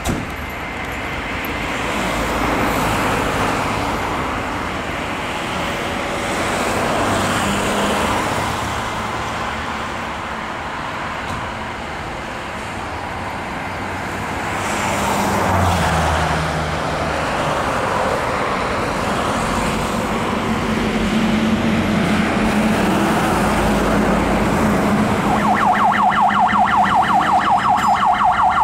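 Road traffic passing by. Near the end, a Renault Midlum fire engine's diesel engine runs as it pulls out of the station, and its siren starts a fast pulsing yelp.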